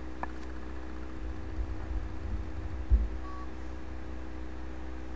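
Steady low electrical-sounding room hum, with a soft thump about three seconds in followed by a short, faint high beep.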